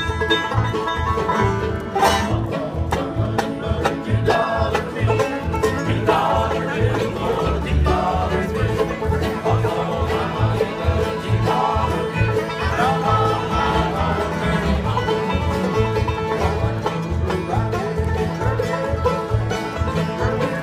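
Live bluegrass band: banjo picking over strummed acoustic guitars, with an upright bass playing a steady beat.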